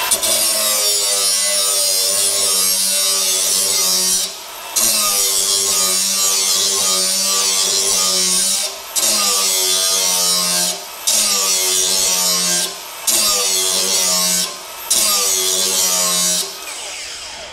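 Cordless angle grinder with a grinding disc running against a steel lawn mower blade, sharpening its cutting edge: a steady motor whine under a bright grinding hiss. The grinding drops out briefly about five times as the disc is lifted off the blade, then the tool eases off near the end.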